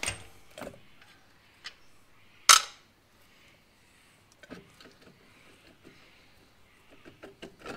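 Light clicks and taps of hands gripping and working loose the bolted rear cover of a Winters quick-change diff, with one sharp knock about two and a half seconds in.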